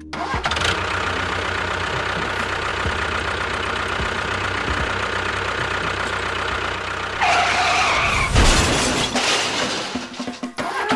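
A vehicle engine runs steadily with a low hum under background music. About seven seconds in the sound changes, with a heavy thud a little later.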